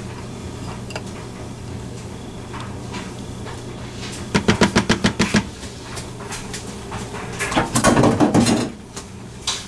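Spoon scraping and tapping against a small bowl to get the last of a sauce out: a quick run of about ten clicks a second lasting about a second, midway through. Near the end comes a louder clatter of dishes being handled on the counter.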